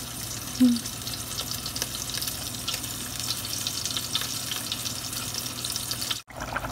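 Curry bubbling and sizzling in a pan on the heat: a steady hiss with fine crackling. A short low sound stands out about half a second in, and the sound drops out for a moment near the end.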